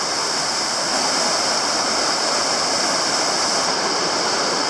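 Steady, unbroken rush of water from a waterfall and its creek.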